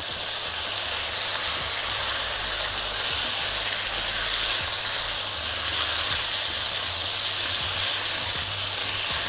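Potato slices and cumin seeds frying in very hot oil in a pan, sizzling steadily as they are stirred with a spatula.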